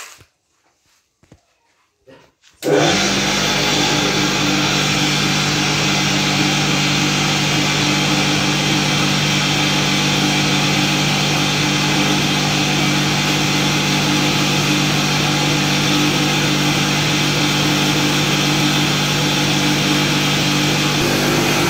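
Electric motor-driven maize crushing machine switched on about three seconds in, then running at a steady speed with a loud even hum and whirr.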